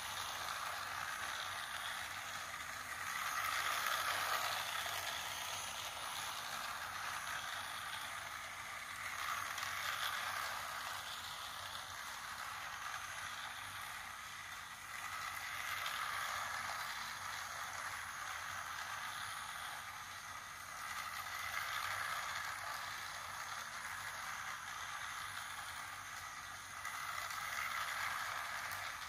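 Battery-powered plastic toy train running around a plastic track loop: a steady whirring, rattling run of its small motor and wheels that swells every six seconds or so as the train comes round past the microphone.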